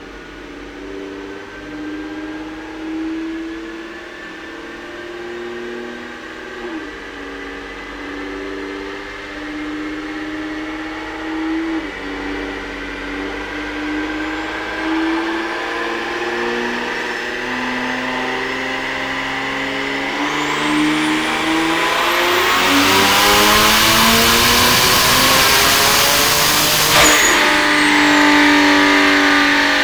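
Kia Stinger's twin-turbocharged 3.3-litre V6 in a pull on a chassis dyno, running on the lowest wastegate-spring boost. The revs climb with drops in pitch at the shifts every five seconds or so, then rise in one long, increasingly loud full-throttle climb with a loud rush that cuts off suddenly about three seconds before the end.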